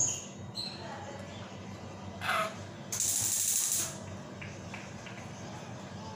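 A lutino (yellow) Indian ringneck parakeet gives a short squawk that falls in pitch about two seconds in, then a loud hiss lasts about a second.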